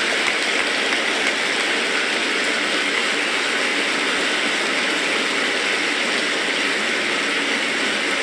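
Large hall audience applauding steadily: a dense, even clatter of many hands clapping.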